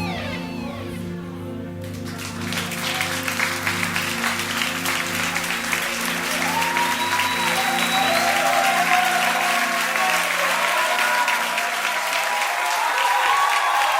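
Live audience applauding, starting suddenly about two seconds in, over a sustained keyboard pad chord that drops out near the end, with voices calling out over the clapping.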